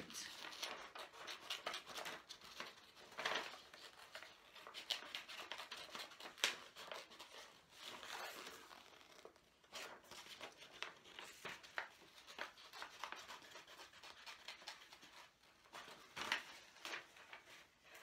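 Scissors snipping through a sheet of paper in short, irregular cuts, with the paper rustling as it is turned.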